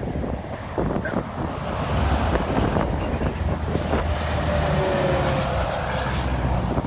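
A semi truck's diesel engine drone builds as it passes close by, its pitch dropping as it goes past, over tyre and road noise from following traffic and wind buffeting the microphone.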